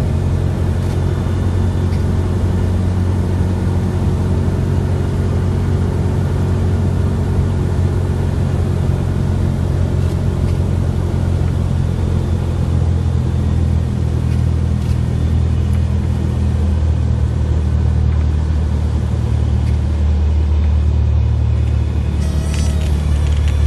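Single-engine light aircraft's piston engine and propeller droning steadily in the cabin at reduced landing power on final approach. Near the end there is a brief burst of sharper, higher sounds as the plane comes down onto the runway.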